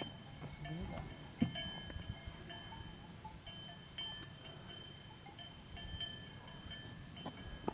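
Neck bells on grazing livestock ringing on and off, their clear notes sounding again and again and overlapping, over a low rumble. One sharp knock comes about one and a half seconds in.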